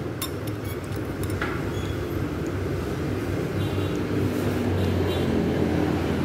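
Steady low rumble of a motor vehicle engine running, growing a little louder. A few light clinks of a metal spoon against a ceramic bowl come in the first second and a half.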